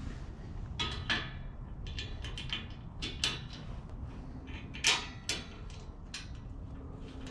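Small metal clicks and rattles as a metal mounting bracket and nuts are handled and fitted by hand onto a grille, with the sharpest click about five seconds in.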